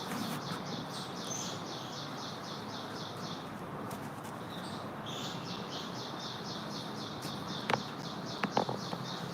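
A bird singing a fast, high, evenly repeated trill in two long runs, the second starting about five seconds in, over steady outdoor background noise. A few sharp clicks come near the end.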